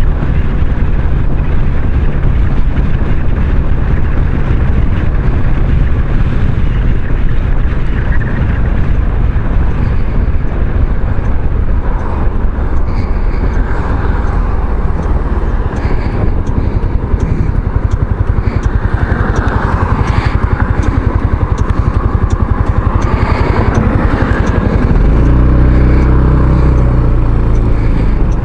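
Kymco Xciting 500 maxi-scooter's 500cc engine running steadily while riding, under a constant rush of noise. About 25 seconds in, a deeper, stronger hum comes in.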